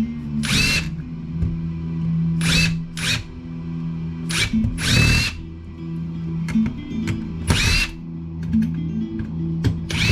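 Cordless drill/driver run in short bursts, about seven brief whines in ten seconds, as screws are backed out of PC power supply cases being stripped for scrap.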